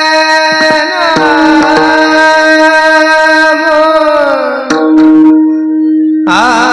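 Devotional kirtan singing: a high voice holds and slides through long notes over a steady harmonium drone, with a few tabla strokes about a second in. The voice breaks off after the middle, leaving the drone alone, and comes back near the end on a wavering note.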